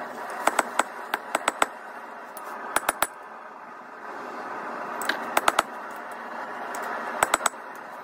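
Sharp ringing metal clinks as a red-hot half-inch round steel bar is worked on the anvil to straighten a bend. They come in five quick clusters of three or four, over a steady rushing noise.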